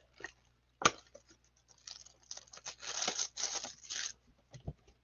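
Cardboard trading-card hanger box handled by gloved hands: a sharp tap about a second in, then a couple of seconds of scraping and tearing cardboard.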